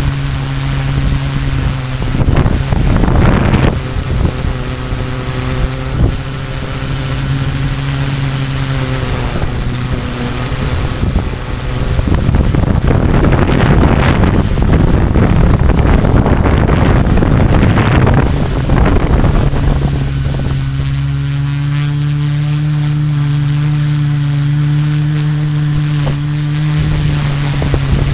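Multirotor drone in flight, heard from its onboard camera: its brushless motors and 13-inch carbon propellers give a steady hum. Wind rushes over the microphone in the middle stretch.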